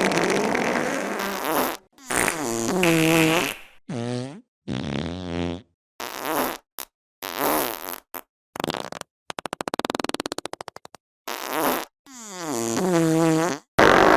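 A string of about a dozen different fart sound effects, one after another with short silent gaps. Several are pitched, with a tone that slides up and down, and one near the middle is a long rapid flutter.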